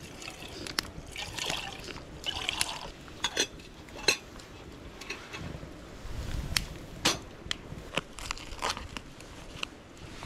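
Liquid pouring and trickling into a cooking pot, with scattered sharp clicks.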